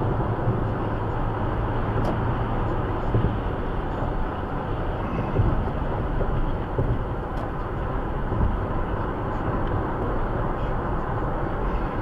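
Steady road and engine noise of a car cruising at freeway speed, heard inside the car's cabin.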